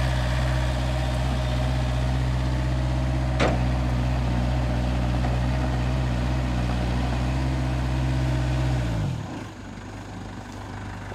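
Hitachi CG25D crawler carrier's diesel engine running steadily, with a single sharp knock about three and a half seconds in. About nine seconds in the engine note drops and fades, leaving a much quieter sound.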